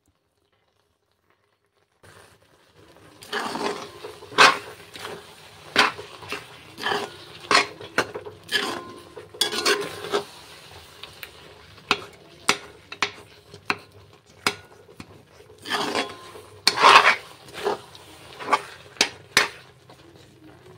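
Steel spoon scraping and clinking against a black iron wok while thick, sticky jujube pickle is stirred, in irregular strokes that begin about two seconds in.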